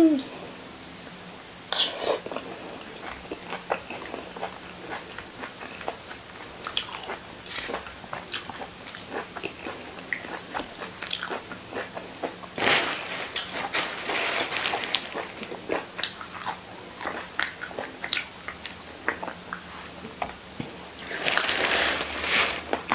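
Close-up eating sounds of a person chewing and smacking on soft, soy-braised salmon head, with many small wet clicks. Two longer stretches of sucking on the fish, about halfway through and near the end, are the loudest parts.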